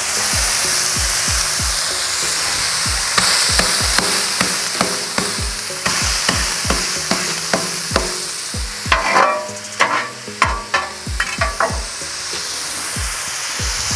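Ground beef and thin-sliced raw onions sizzling steadily on a hot gas flat-top griddle, with repeated low thuds as a metal spatula presses the onions into the patties. About nine seconds in comes a run of sharp metallic clicks and scrapes of the spatula against the griddle plate.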